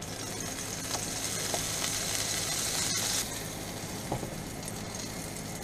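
Squeeze butter and an egg-dipped sandwich sizzling in a hot nonstick frying pan. The steady hiss is a little stronger for the first three seconds, then eases, with one sharp click about three seconds in.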